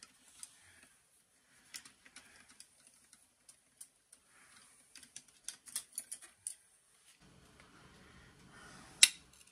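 Scattered light clicks and clacks from the metal mechanism of an old National 160 cash register as its cover and carriage are handled. The clicks bunch together about halfway through, and one sharper click comes near the end. A faint low hum comes in about two-thirds of the way through.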